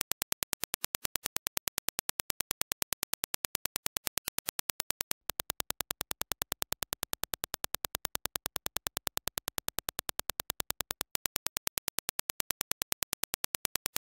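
A test signal of repeated Dirac impulses: a fast, even train of sharp clicks. About five seconds in it breaks off briefly, and the clicks go on as reproduced by the Grado SR225X open-back headphones and picked up by a measurement dummy head, with a faint low hum under them. A few seconds before the end they return to the clean reference clicks.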